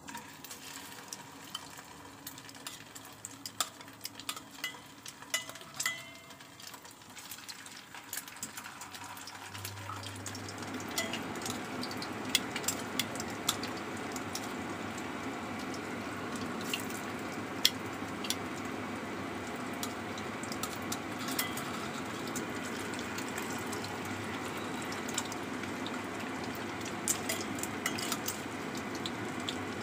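Egg-coated slices of jenang frying in hot oil in a wok. At first there are light sizzling and scattered clicks as pieces are laid in with metal tongs. From about ten seconds in, a steadier, louder sizzle runs on, dotted with crackles.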